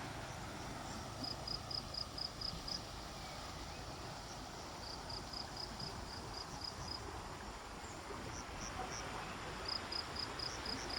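Insect chirping in trains of short, evenly spaced high pulses, about five a second, each train repeating every few seconds over a steady background hiss.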